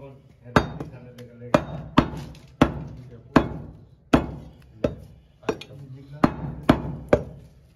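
Butcher's cleaver chopping goat meat on a wooden chopping block: about eleven heavy strokes, one every half second to a second, each a sharp knock that dies away quickly.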